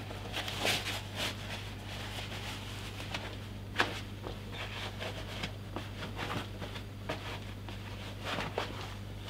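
Leather welding gauntlets being pulled on and worked over the sleeves of a leather welding jacket: scattered rustling and rubbing of leather with a few small clicks, one sharper about four seconds in, over a steady low hum.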